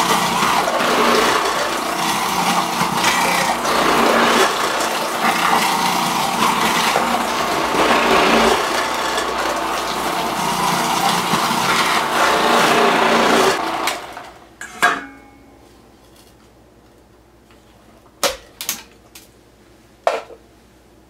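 Food processor motor running with its grating disc as onions are pushed through the feed tube, a steady, loud grinding. The motor stops about two-thirds of the way through, followed by a few sharp clicks and knocks.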